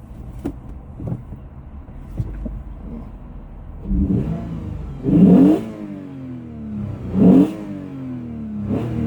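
Lexus GS350 F Sport's 3.5-litre V6 through a newly installed active exhaust, idling with a few light blips and then revved several times, the two loudest revs about five and seven seconds in, each dropping back to idle.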